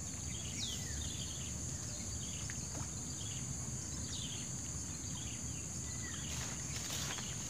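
Outdoor ambience of insects: a steady high-pitched buzz, with short descending bird chirps repeating about once a second and a low even rumble underneath. A few faint clicks come near the end.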